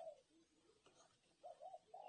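Faint, soft cooing of a spotted dove between its loud calls: one low note trailing off at the start, then a few short quiet notes near the end.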